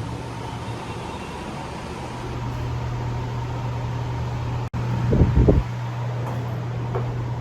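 A steady low mechanical hum, with a brief loud low rumble or handling thump about five seconds in.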